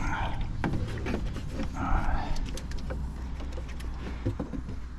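Scattered clicks and short scrapes of a plastic radiator fan shroud being worked loose, over a steady low rumble of wind on the microphone.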